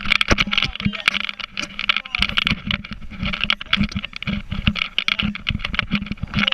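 Inflatable towable sofa being pulled fast over the water, slapping and jolting on the waves in rapid irregular knocks, with a steady hiss of water spray and wind and a low steady hum of the tow boat's engine.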